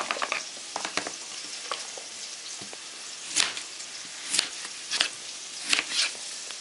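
Onions frying in sunflower oil in a pan, a steady sizzling hiss, with sharp irregular knife strokes on a plastic cutting board as a raw potato is cut into strips; the knife strokes are the loudest sounds.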